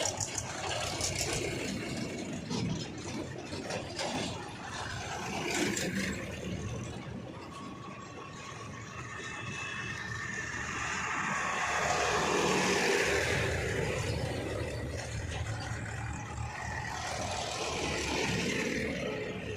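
JCB 3DX backhoe loader's diesel engine running under load while it loads mud. The engine note swells and eases, loudest about two-thirds of the way through.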